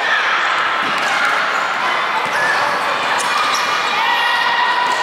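Basketball being dribbled on a hardwood gym floor during play, with players' voices in the background and the echo of a large hall.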